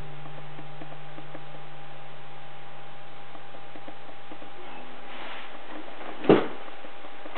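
The last chord of a nylon-string classical guitar rings on and dies away, then a brief rustle and a single sharp knock about six seconds in, over a steady low hiss.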